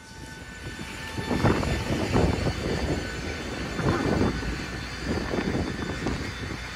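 Jet aircraft noise on an airport apron: a rushing roar with thin, steady, whining tones above it. It swells over the first second or so, then rises and falls in loudness.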